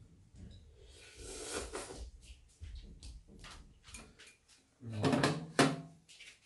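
Tableware noises: metal chopsticks clicking against bowls and a pan on a metal tray, with a louder clatter near the end.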